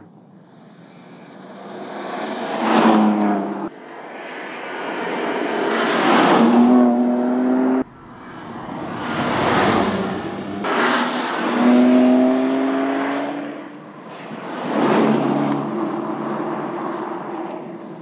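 BMW M2 driving past at speed four or five times. Each time the engine note swells as the car approaches and drops in pitch as it goes by. Several passes break off abruptly where the sound is cut.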